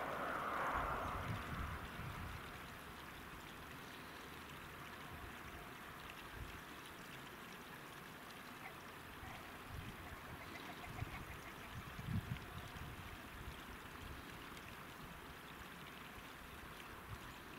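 Wind on the microphone: a steady rushing hiss with irregular low rumbling gusts, the strongest about twelve seconds in. A louder rush at the start dies away within about two seconds.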